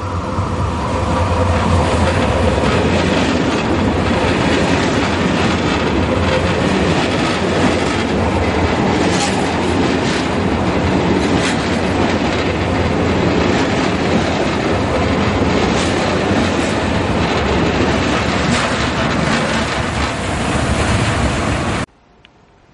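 Electric locomotive-hauled Corail passenger train passing close by at speed: a loud, steady rush of wheels on rail with clicking over the rail joints. The sound cuts off abruptly near the end.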